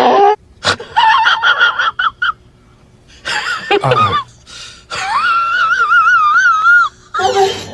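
Saxophone played in short phrases of wavering notes, the longest near the end with a regular vibrato. It is preceded in the first half second by the end of a husky's howl.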